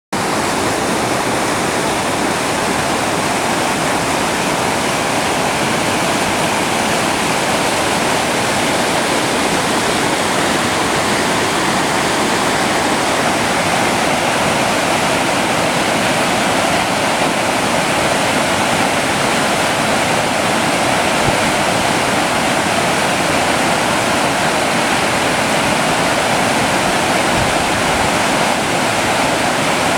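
Mountain stream running steadily: a loud, even rush of water that does not change.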